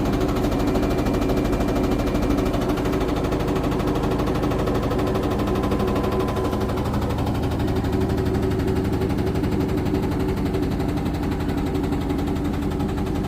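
IFB front-loading washing machine running with a steady, rapid rattling over its motor hum: the abnormal noise it is making.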